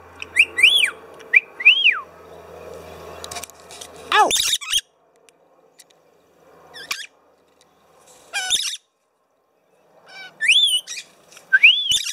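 Pet lorikeets calling in several short bouts: quick rising-and-falling whistled notes and shrill screeches, the loudest screech about four seconds in, with quiet gaps between.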